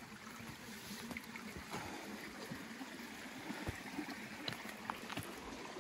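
Faint, steady trickle of creek water running through a gap beneath granite boulders, where the creek flows underground.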